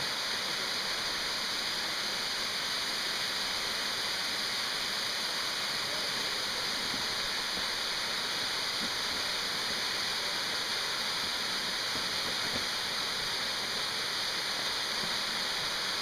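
Steady rush of water falling and running beneath the ice of a partly frozen waterfall, an even hiss with no breaks.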